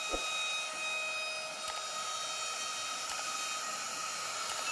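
CNC router spindle running steadily while its cutter mills a recessed panel groove into a wooden door: a steady high whine of several held tones over an even hiss.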